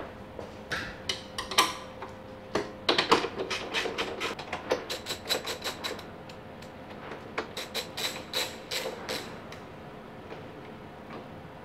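Socket ratchet wrench clicking in three runs of rapid clicks as bolts are undone.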